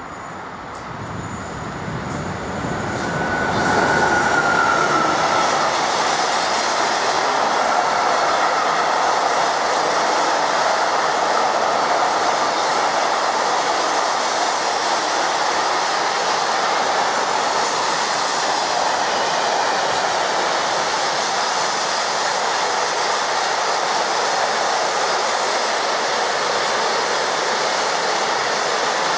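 Freight train of flat wagons rolling past close by over a level crossing. The wheel and rail noise swells over the first few seconds as the train arrives, then holds as a steady loud rumble while the wagons go by.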